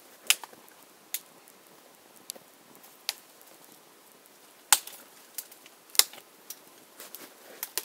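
Small fire of dry twigs burning and crackling, with sharp pops at irregular intervals. The loudest pops come about five and six seconds in.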